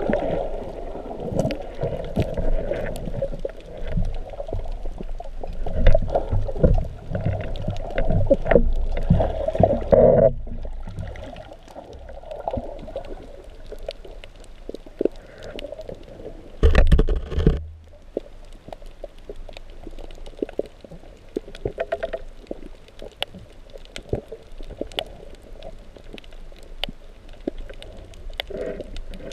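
Muffled underwater noise through a GoPro's waterproof housing: dense rumbling and knocking for about the first ten seconds while gloved hands work among the coral in stirred-up sediment, then quieter with scattered faint clicks, broken by one short loud rumble just past the middle.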